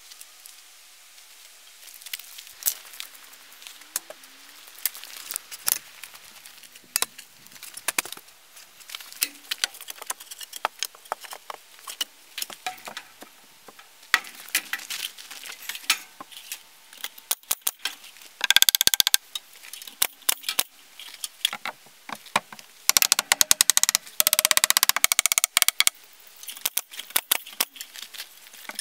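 Sharp clicks and snaps from a pneumatic fastening tool worked against timber wall framing. They are scattered at first, then come in a short fast run about two-thirds of the way through and a longer fast run near the end.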